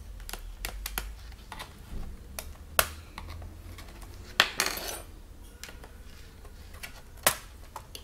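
A screwdriver and the plastic bottom covers of an Acer Aspire 4736Z laptop being handled while its screws are undone and a service cover is pried off: scattered light clicks and taps, with a sharp click about three seconds in, another followed by a brief scrape halfway through, and a third near the end.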